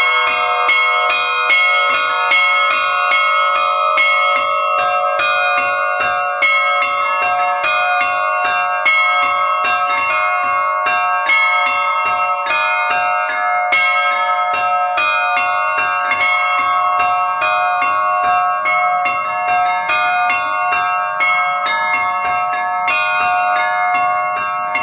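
Russian-style bell ringing (zvon) in three-four time: a set of bells of several pitches struck in a quick, continuous pattern, their tones overlapping and ringing on.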